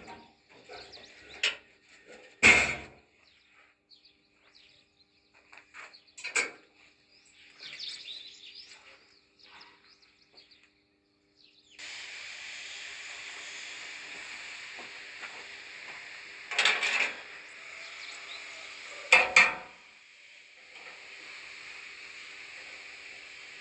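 Metal parts clinking and knocking at irregular moments, with one sharp loud knock a few seconds in; about halfway a steady hiss sets in suddenly, broken by two more loud knocks.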